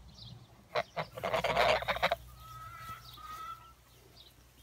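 Domestic geese honking: a short call, then a loud harsh honk lasting about a second, followed by a fainter, thin drawn-out call.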